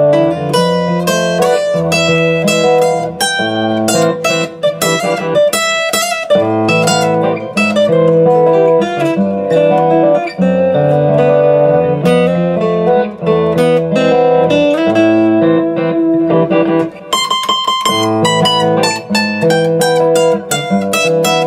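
Martin steel-string acoustic guitar played with a flatpick, heard through its K&K pickup: arpeggiated jazz-style chords ringing one into the next, with a quick flurry of picked notes near the end.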